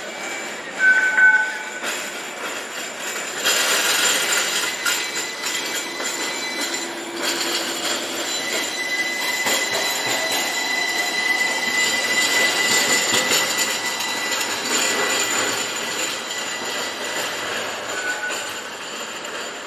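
Streetcar or light-rail train running on steel rails, its wheels squealing with a drawn-out steady squeal in the middle, over continuous rolling noise. A short, loud high tone sounds about a second in.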